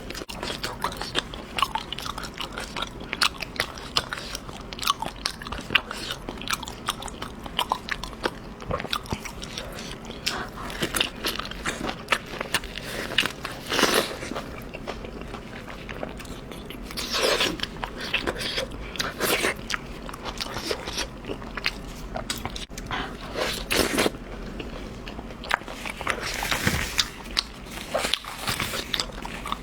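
Close-miked eating: continuous chewing with many small crisp clicks, and a handful of louder bites.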